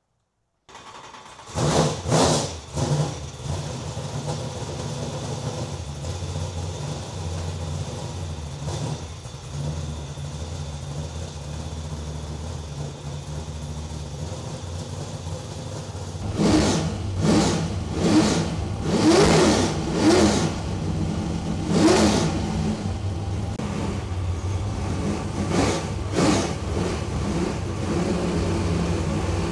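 Cast-iron Dart-block 388-cubic-inch LS V8 race engine cranked by its starter about a second in and firing, blipped twice, then idling steadily. From about halfway through it is revved in a string of sharp throttle blips, with one more blip near the end.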